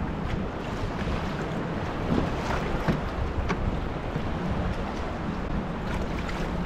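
Wind buffeting the microphone over ocean surf and water sloshing around a kayak, with a few short sharp splashes about two to three and a half seconds in.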